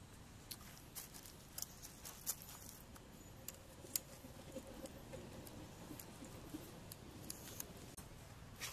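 A dozen or so faint, sharp clicks and ticks at irregular intervals over a quiet steady background.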